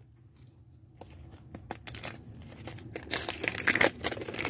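Plastic wrapping and sticker packets crinkling and rustling as they are handled, in irregular crackles that start about a second in and are busiest near the end.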